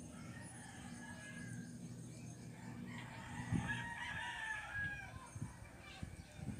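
A rooster crowing, its long arching call strongest from about three seconds in, over a steady low hum with a few soft knocks.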